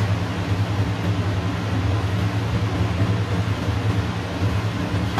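Kitchen range-hood exhaust fan running, a steady low hum with an even rush of air.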